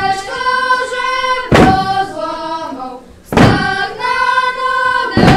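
A children's carolling group singing together in long held notes, with a loud thump on the floor about every two seconds, three times, keeping the beat.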